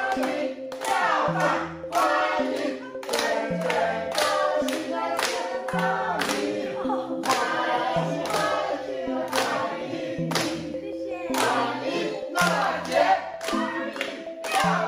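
A small group of men and women singing a welcome song together, clapping their hands along with it.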